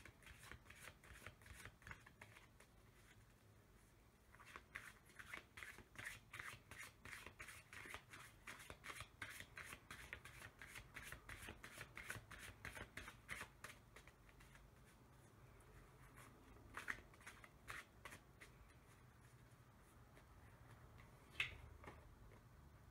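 A deck of oracle cards being shuffled by hand: a quick run of soft card clicks for most of the first fourteen seconds, then a few single clicks and one sharper click near the end.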